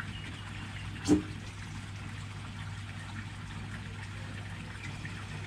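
Gasoline trickling as it is poured into a small portable generator's fuel tank, over a steady low hum. A single sharp knock about a second in.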